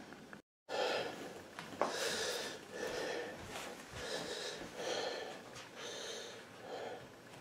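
A cat's noisy breathing close to the microphone: a snuffly hiss repeating about once a second, starting after a brief break near the start.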